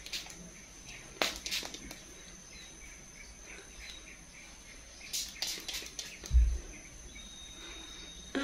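Short bursts of hair spray from a blue spray can aimed at the scalp along braided hair: a couple about a second in and a quick cluster about five seconds in. A dull low bump about six and a half seconds in is the loudest sound.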